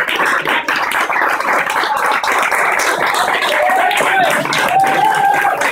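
A crowd of people applauding, with many hands clapping at once and a few voices calling out through it.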